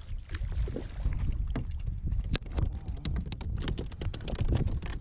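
Low wind rumble on the microphone over water around a kayak, with a run of small sharp clicks and knocks, thickest in the second half and with one stronger click about halfway in.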